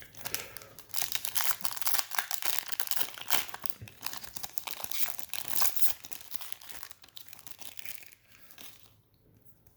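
Trading-card pack wrapper being torn open and crinkled by hand, a dense run of crackling and tearing that dies away near the end.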